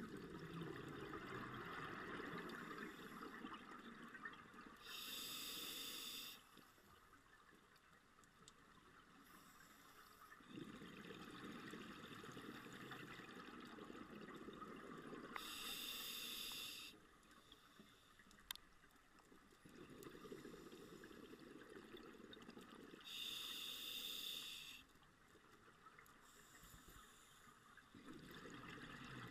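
Scuba diver breathing through a demand regulator underwater, in a slow cycle: three inhalations, each a hiss of about a second and a half, with long stretches of exhaled bubbles gurgling and rumbling between them.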